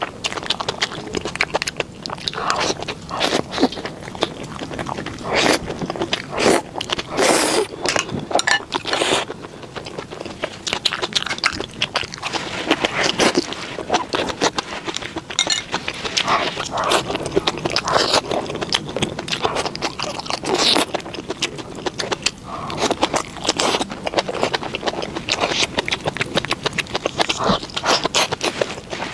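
Close-up eating sounds: irregular crunching and chewing with scraping and clicking of utensils, in quick, uneven strokes throughout.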